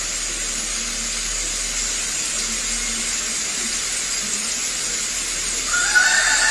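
A steady hiss, with a whining tone rising in near the end and holding.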